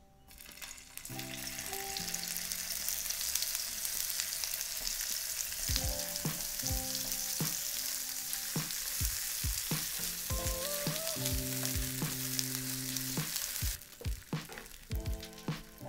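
Food frying in hot oil: a steady loud sizzle that starts just after the opening and cuts off suddenly near the end.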